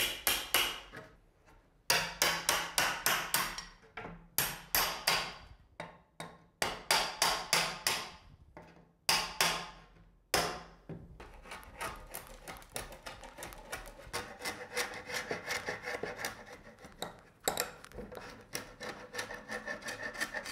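Steel chisel tapped along a wooden nosing board with a hammer, scraping off dried construction adhesive and filler, in bursts of quick sharp strokes. About halfway through it turns into a quieter, faster run of scraping strokes.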